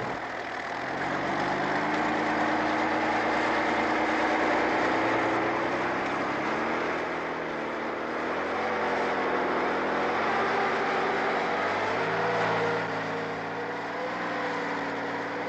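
Heavy tracked vehicle's engine running steadily under load as it drives, its pitch slowly sliding up and down, a little louder from about a second in.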